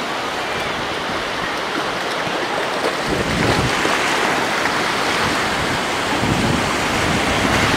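Ocean surf washing in over the shallows, a steady rush of water that grows louder about three seconds in as a foamy wave comes up.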